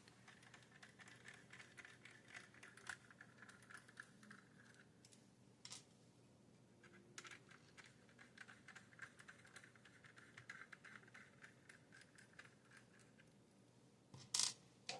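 Faint, scattered small clicks and scratches of small plastic model-train parts being handled as couplers are swapped on a model railroad car's trucks, with a sharper click near the end.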